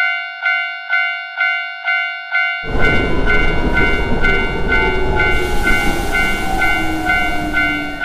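Japanese railway crossing warning bell ringing about twice a second. About two and a half seconds in, the loud rush of a Shinkansen bullet train passing the crossing joins it. The train is louder than the bell and falls slowly in pitch as it goes by.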